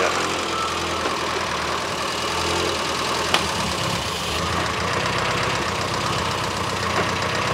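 Austin Metro's four-cylinder A-series engine with an SU carburettor idling steadily while it warms up from cold. A single sharp click sounds about three and a half seconds in.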